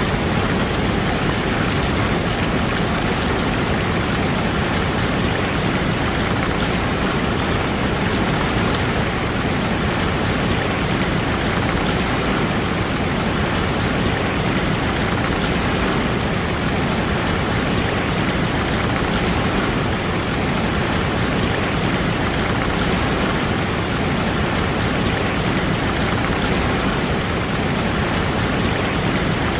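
Waterfall sound effect: a steady, even rush of falling water that does not change.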